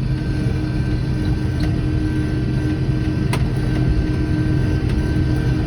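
Vehicle engine running at a steady pitch, heard from inside the cab while driving over rough field ground, with a faint click about three seconds in.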